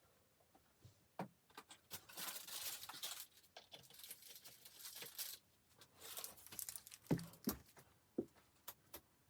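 Crinkling and rustling of a material being handled, in two stretches, with scattered clicks and a few soft knocks near the end.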